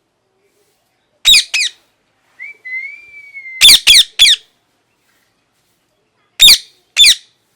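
Indian ringneck parrot giving loud, short screeching calls: a pair, then a drawn-out whistle, then three screeches in quick succession and another pair near the end.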